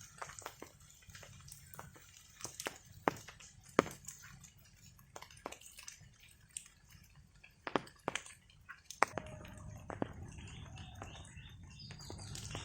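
Rain drips landing one by one on hard surfaces, a few sharp drops a second at irregular intervals; about nine seconds in, a steadier background of falling rain grows louder.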